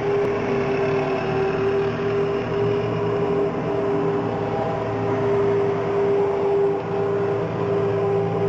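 Diesel engines of council street-cleaning machines running out of sight with a steady drone and one constant hum-tone.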